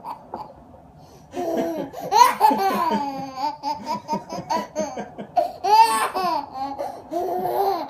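A young child laughing hard in repeated high-pitched bursts, starting about a second and a half in: delighted laughter at a mock sneeze.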